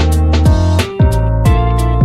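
Upbeat background music with plucked guitar, a deep bass line and a steady beat.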